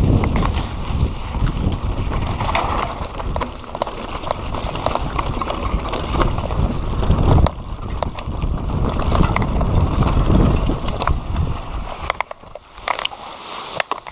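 Mountain bike ridden over a bumpy dirt singletrack, with wind rumble on the microphone and a constant clatter of clicks and rattles from the bike over the bumps. The wind rumble drops away near the end, leaving scattered clicks.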